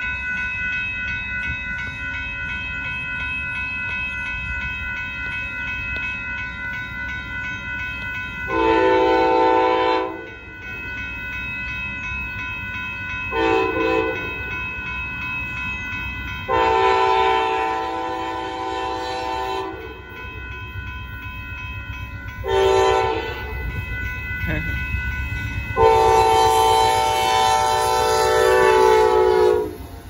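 Amtrak Texas Eagle's diesel locomotive sounding its horn in five chords, long, short, long, short, long, a playful horn show at the grade crossing. Steady ringing of the crossing-signal bells runs underneath, and the train's rumble grows as the locomotive reaches the crossing near the end.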